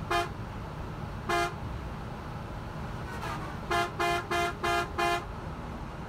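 Vehicle horn honking in short toots: one, another a little over a second later, then a run of five quick toots. Steady road and tyre noise from driving runs underneath.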